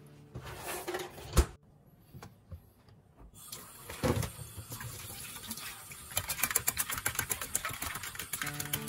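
Kitchen preparation sounds: a sharp knock about a second and a half in, then a steady rush like water running into a sink, with another knock. Near the end comes a quick run of rapid light taps.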